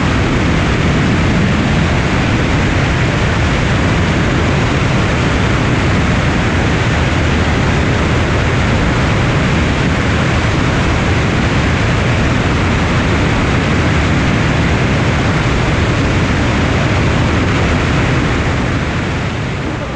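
Steady, loud rush of airflow over the microphone of a camera mounted outside a single-engine light aircraft in flight, with the propeller engine running under it; it fades near the end.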